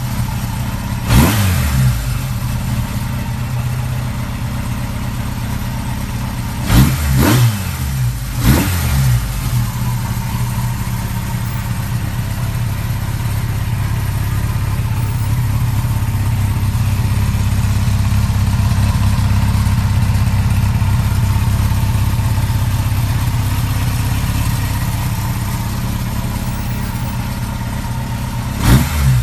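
Kawasaki Z750D1 (Z2) air-cooled inline-four engine running, blipped on the throttle about four times in the first nine seconds and once more near the end, with steady idling in between.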